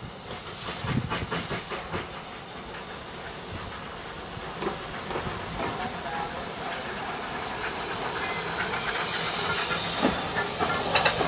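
Small green tank steam locomotive running light toward and past, its steam hiss swelling and growing louder as it comes close. Short chuffing or knocking beats come in clusters in the first two seconds and again near the middle.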